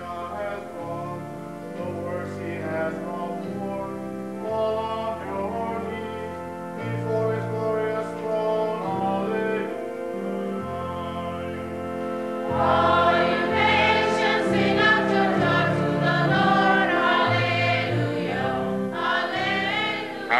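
Choir singing in held, slow notes over a moving low line, swelling louder a little past the halfway point.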